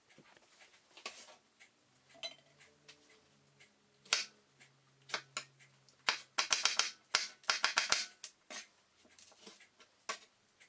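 Kitchen knife cutting strawberries against a cutting board. Scattered light knocks at first, then a quick run of chopping taps starting about six seconds in and lasting about two seconds.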